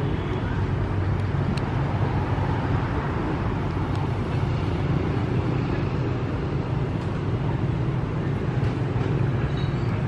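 Steady street background noise: a continuous low engine-like hum under an even wash of outdoor noise.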